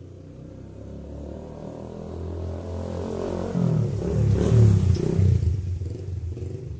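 Custom café-racer motorcycle riding past: its engine grows louder as it approaches, is loudest about four and a half seconds in as it goes by, and the note drops and fades away.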